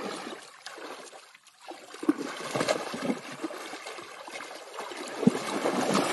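Water splashing and sloshing as an elephant calf moves and plays in a shallow muddy pool, with a short lull a little over a second in and sharper splashes later on.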